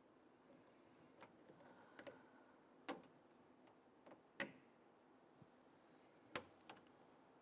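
Scattered small sharp clicks and taps, about seven with uneven gaps, the loudest around three and four and a half seconds in: pliers and a plastic latch piece being worked onto a door-lock actuator cable end.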